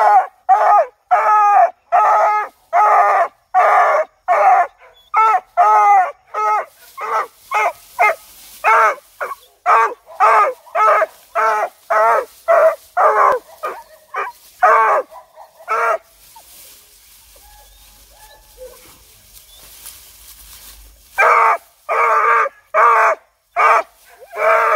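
Hunting dog barking rapidly and repeatedly, about two barks a second, at an armadillo's burrow: the dog is baying game that has gone to ground. The barking stops for about five seconds, then starts again.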